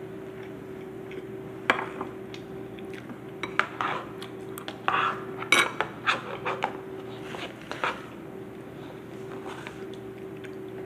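Metal spoon clinking and scraping against a bowl while eating. The clicks come scattered: one early, then a busy run between about three and eight seconds in.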